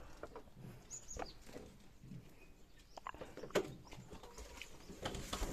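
A few faint, scattered knocks and clicks, the loudest a little past the middle, with a brief high chirp about a second in.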